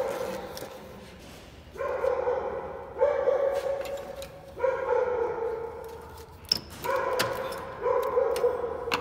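A dog barking over and over: about six drawn-out barks of steady pitch, each close to a second long.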